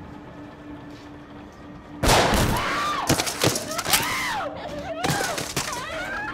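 A low steady hum, then about two seconds in a sudden burst of gunfire: several sharp shots over the next few seconds. Wild shrieking and yelling voices rise and fall over the shots.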